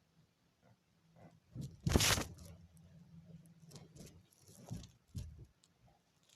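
A cartoon sneeze: a short rising build-up, then one loud noisy burst about two seconds in. Scattered softer clicks and knocks follow.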